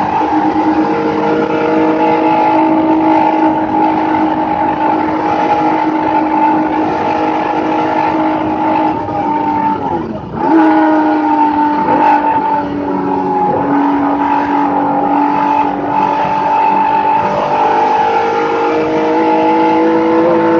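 Race car engine heard from inside the cockpit under load on track, its note holding fairly steady with tyre and road noise underneath. The engine pitch dips sharply and recovers about ten seconds in, dips briefly again a few seconds later, and climbs slowly near the end.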